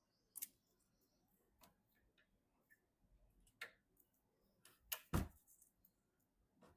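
Sparse light clicks and taps of PC hardware being handled during assembly, with a sharper knock about five seconds in.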